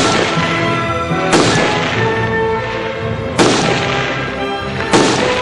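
Background music with four sharp rifle shots over it, irregularly spaced about one and a half to two seconds apart, each ringing away; the shots come from a prone shooter firing aimed shots.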